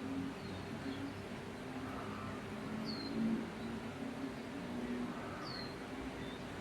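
Birds calling: low, repeated calls come and go, and two short, high, falling chirps sound about three and five and a half seconds in, over a steady hiss.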